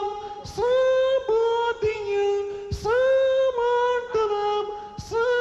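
A woman singing the same short falling three-note phrase over and over, each repeat starting sharply and coming about every two seconds.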